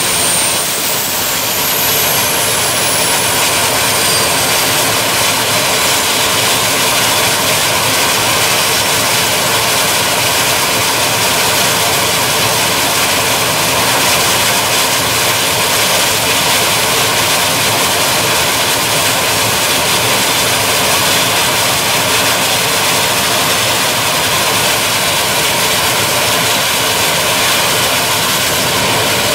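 Gas-turbine engines of a tractor-pulling tractor running with a steady, loud jet-like roar and hiss. A high whine falls in pitch over the first few seconds.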